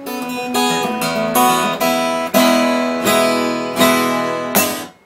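Closing theme music: chords strummed on an acoustic guitar, with a few strong accented strums, stopping abruptly near the end.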